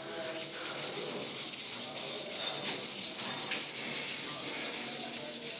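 PTFE (Teflon) thread-seal tape being pulled off the roll and wrapped around the threads of a pipe nipple: a steady crinkly rustle with many small ticks.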